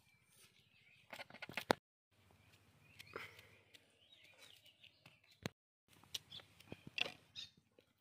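Quiet hand-handling sounds of food preparation: scattered small clicks and rustles as skin is peeled off boiled potatoes and bread crusts are crumbled on a steel plate, with faint bird chirps in the background. The sound drops out to silence twice, briefly.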